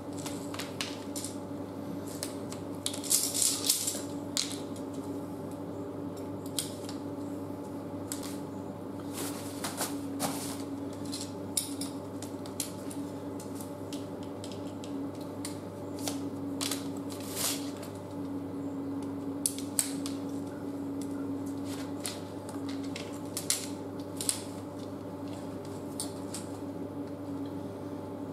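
Camp cot poles and plastic leg clips clicking and clinking as they are handled, laid down and fitted together, with a small flurry of rattles about three seconds in. A steady low hum runs underneath.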